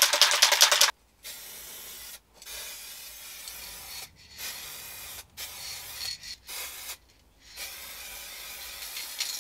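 Aerosol spray-paint can shaken, its mixing ball rattling rapidly for about the first second. It is then sprayed in several hissing bursts with short breaks between them.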